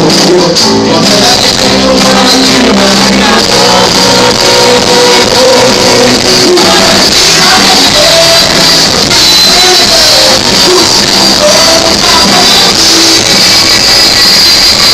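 Live rock band playing with a singer over it, recorded from the audience; the sound is loud and of poor quality.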